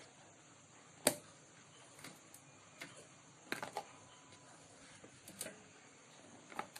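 Scattered light clicks and knocks of handling, about eight short ones, the loudest about a second in.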